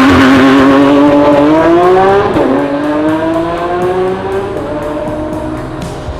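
Race-car engine sound effect revving through the gears. The pitch climbs, drops sharply about two and a half seconds in as if shifting up, then climbs again while getting quieter, with faint rapid ticking underneath.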